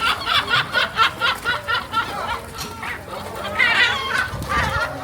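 Gulls calling: a fast run of short repeated notes, about six a second, then a louder, longer wavering call a little after halfway.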